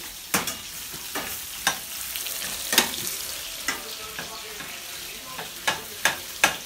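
Sausages sizzling in a frying pan: a steady hiss, broken by about eight sharp clicks and knocks at irregular intervals.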